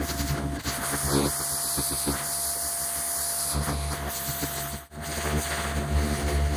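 Pressure washer running: a steady motor hum under the hiss of the high-pressure water spray, briefly cutting out about five seconds in.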